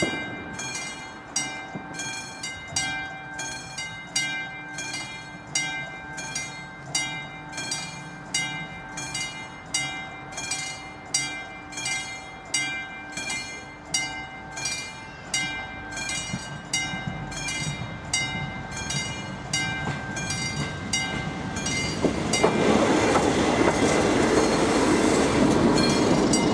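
Level-crossing warning bell ringing in even strokes, about one and a half a second. Over the last few seconds the rushing rumble of an approaching Regionova class 814 diesel railcar rises and becomes the loudest sound.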